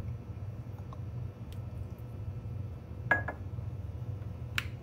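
A measuring spoon clinks twice against a glass measuring cup about three seconds in, with a brief ring, among smaller clicks of bottles and utensils; a sharp click comes near the end. A steady low hum runs underneath.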